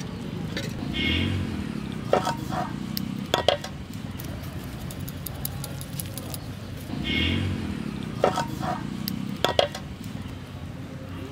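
Sharp metallic clinks and taps against an aluminium cooking pot, coming in small clusters a few times, over a steady low background. A short pitched call, like a distant voice, sounds twice.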